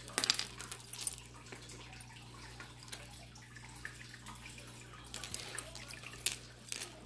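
Small clicks and clinks of costume jewelry pieces being handled and sorted: a quick cluster about a second long at the start, then a few scattered clinks around five to six seconds in.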